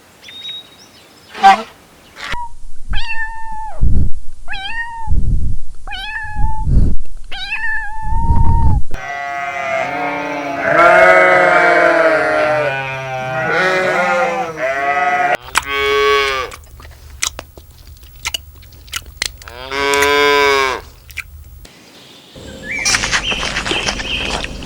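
A string of different animal calls one after another: four short meows from a cat, then a long stretch of overlapping bleating, then a few more drawn-out bleats and a noisier stretch near the end.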